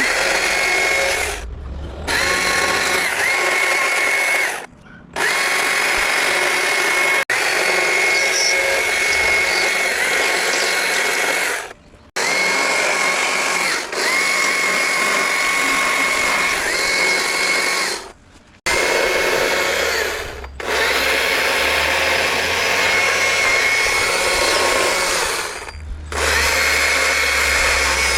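Stihl MSA 160 C battery chainsaw running in a string of trigger bursts, one to several seconds long, with short stops between. The motor's whine rises in pitch as each burst starts, then holds steady. The saw is being test-run after its chain tension was adjusted.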